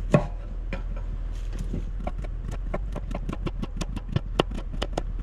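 Knife slicing a vegetable on a cutting board: a few separate taps, then a quick run of chopping taps, about five a second, over a steady low hum.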